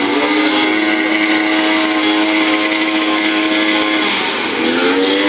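Motor vehicle engine revving up and held at high revs, dropping off briefly about four seconds in before revving up again.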